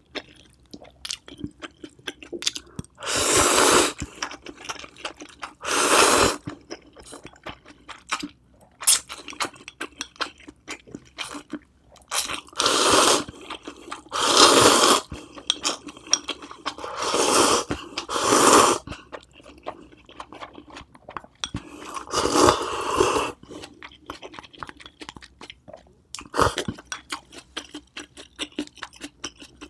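Close-miked eating of cheese ramen noodles: about seven loud slurps of half a second to a second each, with wet chewing and small mouth clicks between them.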